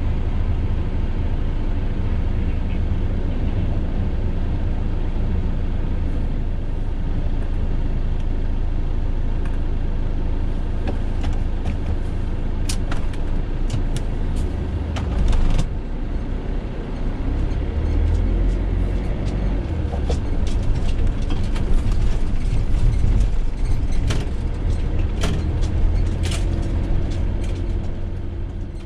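Steady low rumble of a Fiat Ducato campervan's diesel engine and road noise, heard from inside the cab while driving, with scattered sharp clicks and knocks through the middle and later part.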